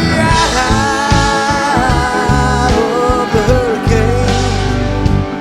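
Live rock band playing: bass and drums under a lead line that bends and slides in pitch.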